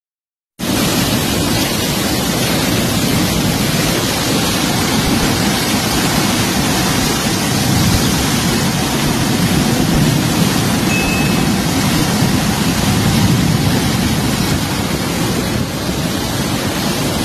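A river in flood rushing past: a loud, steady wash of water noise that starts suddenly about half a second in.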